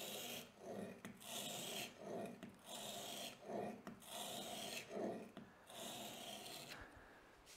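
Plane iron in a roller honing guide scraping over 100-micron abrasive sharpening film lubricated with honing oil, at the coarse stage of sharpening the bevel. The strokes repeat steadily about once a second, each a short rasping scrape.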